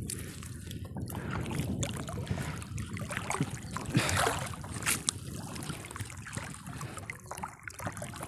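Water splashing and dripping as a wet monofilament fishing net is pulled out of the lake by hand over the side of a small boat, with scattered small clicks and a louder splash about four seconds in.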